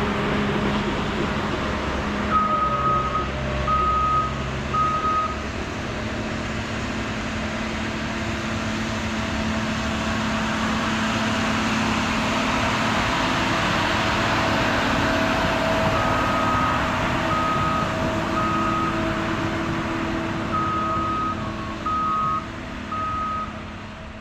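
Engines of railway tie gang maintenance-of-way machines running as they pass, louder in the middle and fading near the end. A warning beeper sounds in groups of three short beeps: once a few seconds in, then twice near the end.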